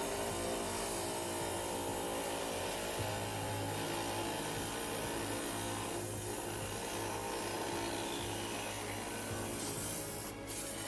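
Diamond-blade lapidary trim saw running steadily as it cuts through a Trancas geode.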